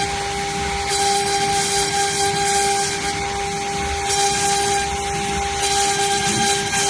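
CNC router spindle running with a steady high whine while its bit cuts, the cutting coming through as an uneven hiss that swells and drops every second or so.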